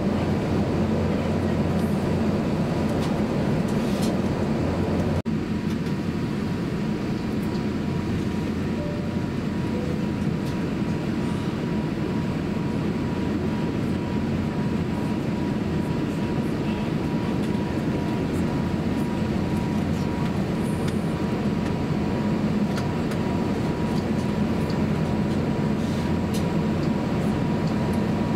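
Steady cabin noise inside an Airbus A350-900 airliner in flight on its descent: a low, even roar of airflow and engines, with a faint thin steady tone over it and a brief break about five seconds in.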